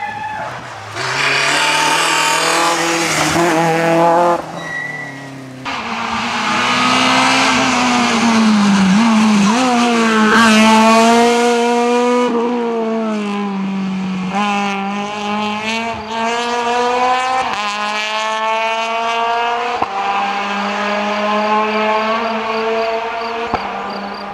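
Citroën C2 R2 rally car engines revving hard at full throttle. The pitch climbs, then drops sharply at each gear change, many times over, as the cars pass on the stage.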